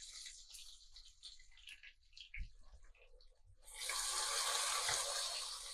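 Ginger, garlic and green chili paste sizzling in hot oil with fried onions as it is stirred with a spatula. The sizzle is faint at first, with a few small knocks from the spatula, then turns louder and steady about two-thirds of the way in.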